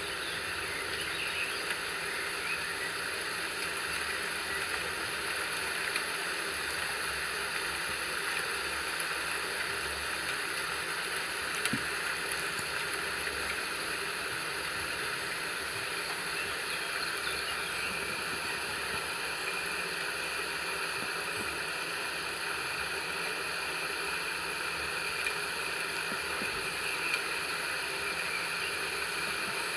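Steady rainfall, an even hiss with no let-up.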